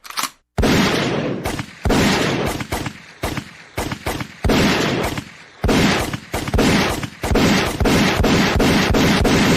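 Gunshot sound effects of the kind used in dancehall mixes: a few short clicks, then from about half a second in a string of loud shots, each with a booming, decaying tail. The shots come faster and closer together in the second half.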